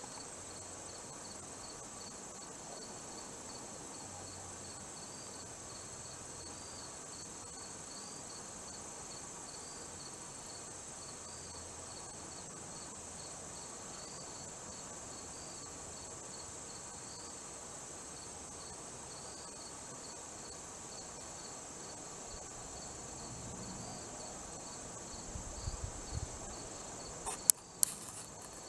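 Steady chorus of insects, likely crickets: a continuous high buzz with a faint, regular chirping pulse beneath it. Near the end, a few soft knocks and sharp clicks break in.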